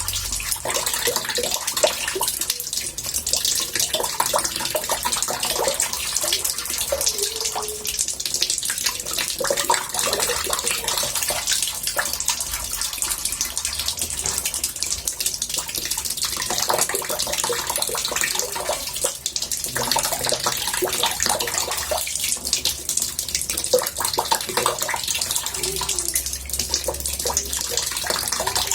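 Tap water running steadily into a bathtub, a continuous murmuring splash and bubble with no pauses.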